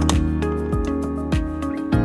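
Background music with a steady beat, about one thump every 0.6 s, under held chords.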